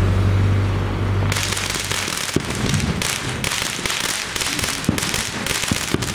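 Aerial firework shells crackling overhead: a dense, rapid popping crackle starts about a second in, with a few sharper pops through it. Under the start there is a low steady hum that fades out around two seconds.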